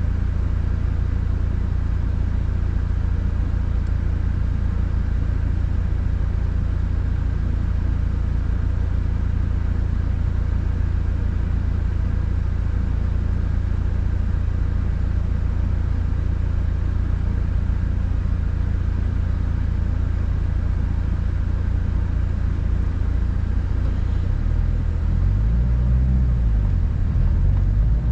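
Subaru WRX being driven, a steady low engine and road rumble; near the end the engine note rises and falls in pitch.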